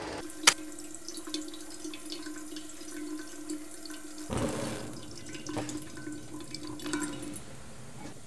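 A sharp click about half a second in, then water trickling and dripping from the tap of a metal water urn into a kettle, with many small ticks. A steady hum runs underneath and stops near the end.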